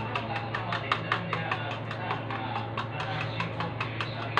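Fork beating raw eggs in a plastic container, clicking against its sides in a fast, even rhythm of about five or six strokes a second.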